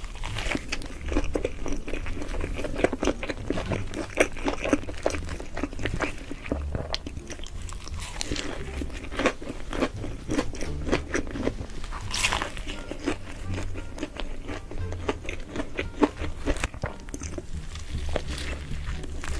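Close-miked crunchy biting and chewing of food, many irregular crunches throughout, over background music.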